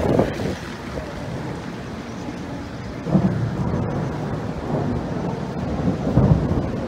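Thunder rumbling in a thunderstorm, swelling about three seconds in and again near the end, over steady rain.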